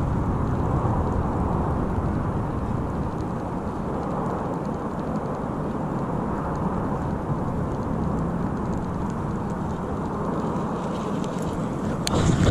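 Steady wind rumbling on a chest-mounted camera microphone, with a sharp knock near the end.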